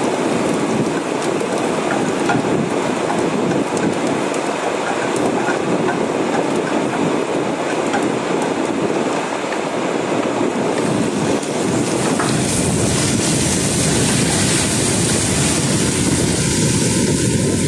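Minced garlic sizzling in oil in a stainless frying pan, stirred with a wooden spatula, with small ticks in the first half. About twelve seconds in, the sizzle grows fuller as chopped tomatoes go into the pan.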